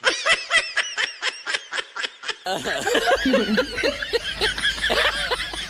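Snickering laughter: a quick run of short giggles, about seven a second. About halfway through it changes suddenly to fuller laughter with overlapping voices.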